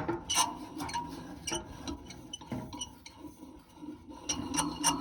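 Irregular light metallic clicks and clinks, a few a second, each with a short ring: small parts or tools being handled while an air conditioner's blower assembly is worked on.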